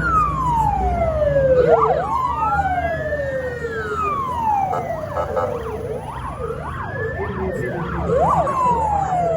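Emergency vehicle siren sounding a slow wail that rises and falls about every four seconds. A faster yelp of quick up-and-down sweeps overlaps it in the middle, over a low engine rumble.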